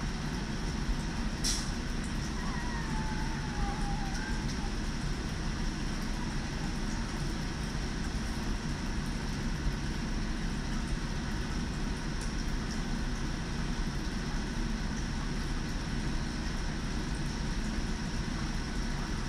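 Newborn Vizsla puppy giving one thin, falling whimper a few seconds in, over a steady low rumble, with a single click shortly before.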